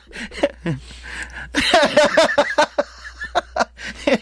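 Speech only: voices talking that the transcript did not pick up, possibly with a little chuckling.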